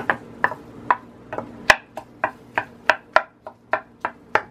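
Wooden spoon knocking and scraping against a glass baking dish in quick, even taps, about three a second, as it turns over pieces of chicken and garlic being oven-dried.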